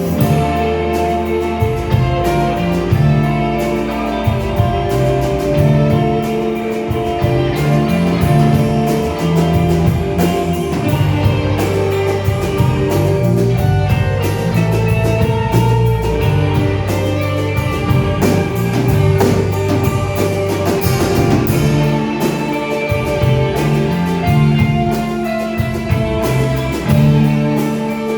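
Instrumental stretch of a rock-style song: guitars over a drum kit keeping a steady beat, with no vocals.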